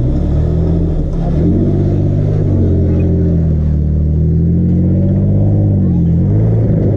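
Jeep engine revving under load as it climbs a short rock wall, its pitch rising and falling several times with the throttle.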